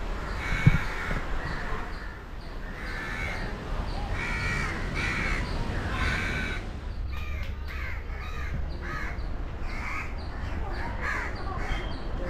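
Birds calling over and over in short, harsh repeated calls, with a single sharp knock about a second in.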